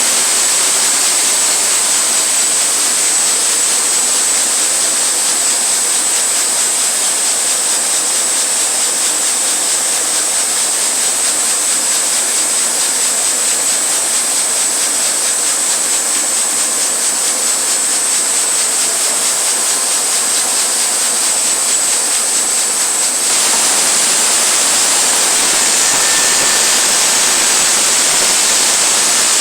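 Sawmill running through a cut in a log: a loud, steady noise with a high whine. About two-thirds of the way through, the sound changes and grows brighter.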